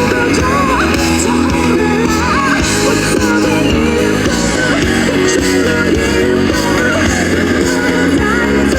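Live rock band playing, with electric guitar and a sung vocal line over a steady, loud full-band sound.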